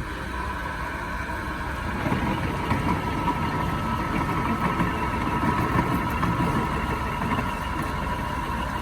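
A machine running steadily: a low rumble with a steady whine on top.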